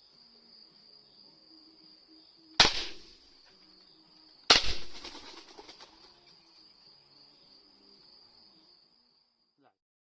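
Keserű Godfather 19M rubber-bullet rifle fired twice, about two seconds apart, each shot followed by a fading echo. A steady high cricket chirr runs underneath.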